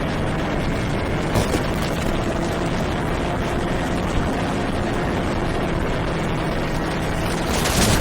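FPV racing quadcopter's motors and propellers whirring in flight, with a steady rush of noise and a louder burst just before the end.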